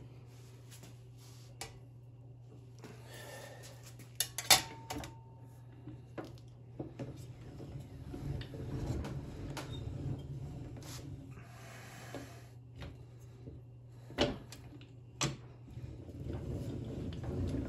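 Sheet metal being handled and fed through a hand-cranked slip roll, the thin sheet rattling and scraping against the rollers, with a sharp metallic clank about four seconds in and two more knocks near the end. A steady low hum runs underneath.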